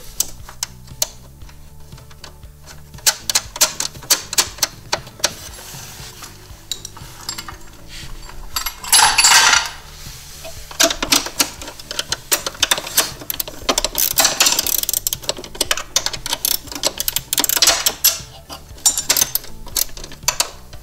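Ratchet wrench clicking in quick runs as bolts on a snowmobile's foot-peg bracket are tightened, with clinks of metal tools and parts. A short scraping rasp about nine seconds in.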